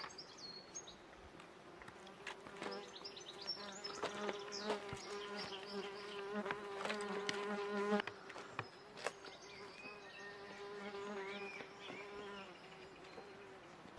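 A flying insect buzzing close by, a steady drone that swells and fades as it moves about, loudest from about a third of the way in until near the end. A few sharp clicks and snaps and some high chirps come through over it.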